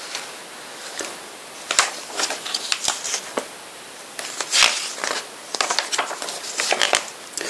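Glossy paper album pages being turned and handled: scattered short rustles and flaps, few at first and more frequent in the second half.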